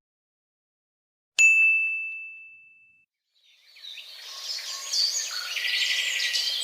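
A single bright bell ding that rings out and fades over about a second and a half. About halfway through, birds chirping begins and carries on: many short overlapping chirps.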